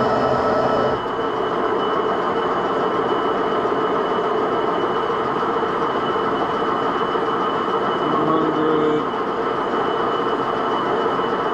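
Metalworking machine tool running a cut under power feed: a steady mechanical noise with a constant whine. Part of the sound drops away about a second in, and a short extra tone comes in around eight seconds in.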